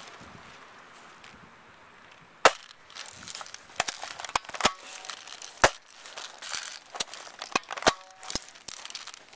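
Airsoft guns firing in a skirmish: about a dozen sharp snapping shots at irregular intervals, the loudest about two and a half seconds in and just past halfway, with rustling between the shots.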